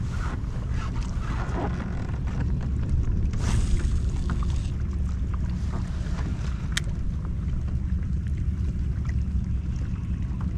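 Steady wind rumble buffeting the microphone on an open-water kayak. A brief rushing hiss comes a little over three seconds in, and a single sharp click near seven seconds.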